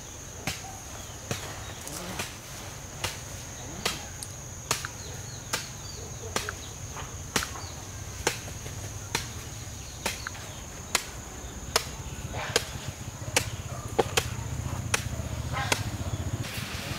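Steady, even chopping with a hand tool, one sharp blow about every second, over the steady high trill of an insect that stops near the end.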